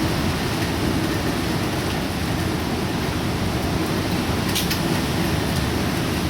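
Steady, heavy typhoon rain and wind, an even noise with no let-up, with one brief sharp click about four and a half seconds in.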